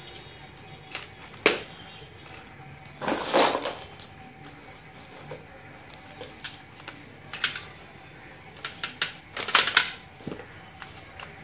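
Slate pencil sticks clicking and clattering against one another and a steel tray as they are handled, with a longer rustling slide about three seconds in and a quick run of clicks near the end.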